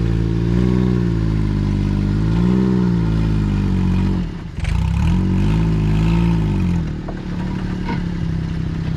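Small engine of a lifted Japanese kei mini truck working under load as it climbs a gravel pile in four-wheel drive, its revs rising and falling. The revs dip briefly about four seconds in, then pick up again and settle lower and steadier near the end.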